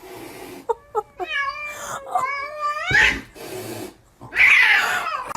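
A cat yowling: a few short chirps, then a long drawn-out meow that wavers in pitch, and a louder, harsher cry falling in pitch near the end.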